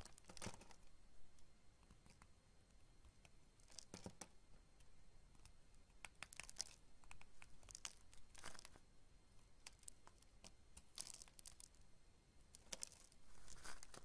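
Box-cutter blade slicing through a bar of soap, quiet crunchy cutting strokes every couple of seconds as thin slices and small cubes break away.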